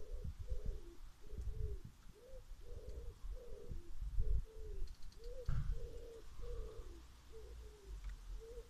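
A pigeon cooing, a long run of repeated arched coos about two a second, over a low rumble; a single sharp click a little past halfway.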